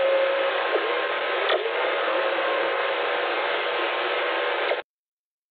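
Proton whistlers in a VLF radio recording of Earth's magnetosphere, set off by lightning. Each falling whistle is followed by a tone that rises and then holds a steady, fairly low pitch, over a constant radio hiss, with fainter sweeps about one and one and a half seconds in. The recording cuts off abruptly near the end.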